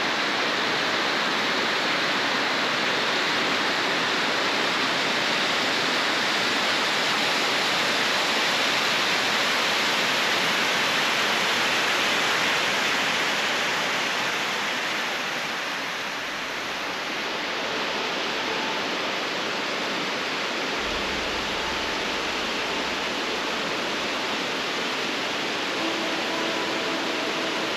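Rushing creek water cascading in a continuous steady rush, the stream swollen with spring runoff. The rush eases a little about halfway through, and faint music comes in near the end.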